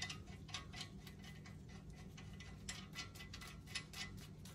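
Lug nuts being spun by hand onto the wheel studs of a Jeep front hub to hold a new brake rotor on: a run of light, irregular metallic clicks, several a second, over a steady low hum.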